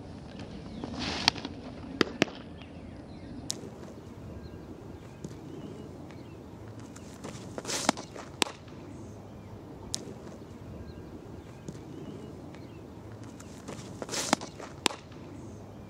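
Softball pitches thrown to a catcher, three in all, a few seconds apart. Each brings a brief rush of noise from the windmill windup and stride, then a sharp pop of the ball into the catcher's leather mitt.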